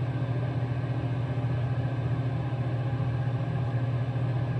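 Steady low motor hum, unchanging in pitch and level.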